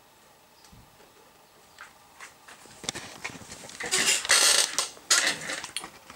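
Handling noise: a few light clicks, then two loud bursts of rustling, rubbing noise about four and five seconds in.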